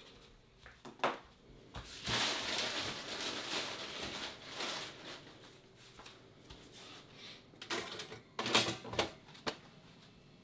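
Someone handling things at a kitchen counter: a knock about a second in, about three seconds of hissing rustle, then a quick cluster of clicks and knocks near the end.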